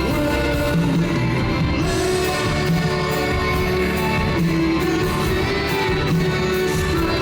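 Live rock band playing, with sustained held notes over a low pulse that repeats about once a second.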